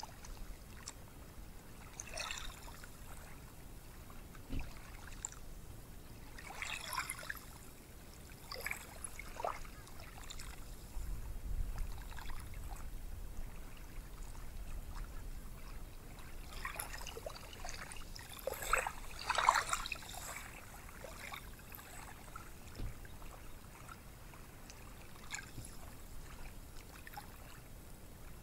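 Gentle surf on a beach: small waves breaking and washing up the shore in separate splashing, hissing surges every few seconds, the biggest one about two-thirds of the way through.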